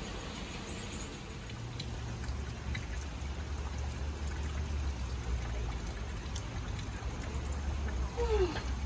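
Water from a small garden fountain trickling and splashing into its stone basin, over a steady low rumble. A short falling tone sounds near the end.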